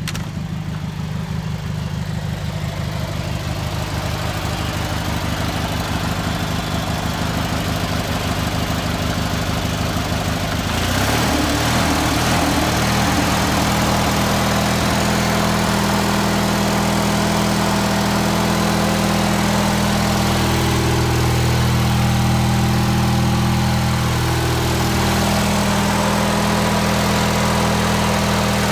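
Riding lawn mower engine running steadily. About a third of the way in it picks up with a short rise in pitch and runs louder, as the throttle is opened up from idle.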